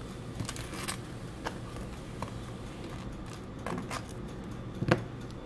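Table knife spreading processed cheese spread on toast: a few short scrapes and light knocks, the sharpest about five seconds in, over a low steady hum.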